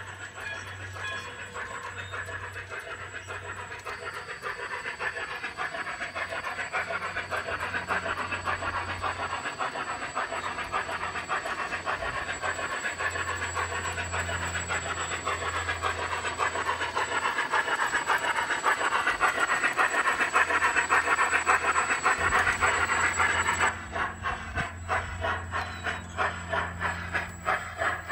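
Large-scale garden-railway model trains running: wheels clicking fast over the track with a steady rushing rumble that grows louder, then for the last few seconds a rhythmic steam-locomotive chuff at about two beats a second.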